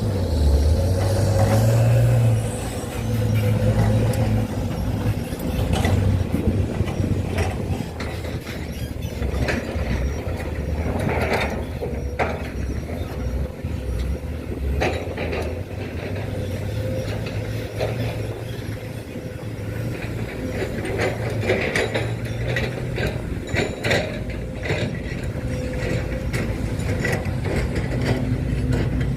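Radio-controlled model excavator and truck working: small electric motors and gears running with a steady low hum, with many short clicks and ratcheting.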